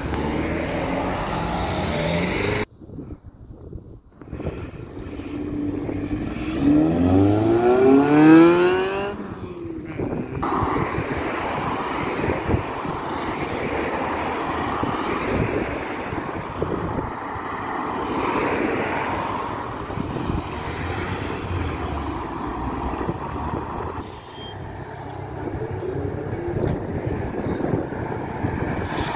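Cars driving past on a road, engines and tyres running steadily. About seven to nine seconds in, one car accelerates hard, its engine note climbing steeply to the loudest moment.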